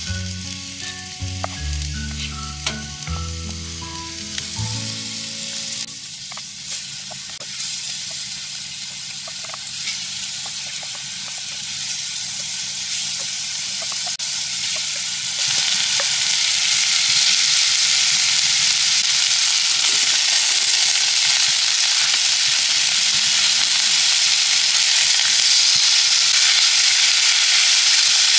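Food sizzling as it fries, with a few small clicks; the sizzle grows louder about halfway through. A short piece of music plays over the first few seconds.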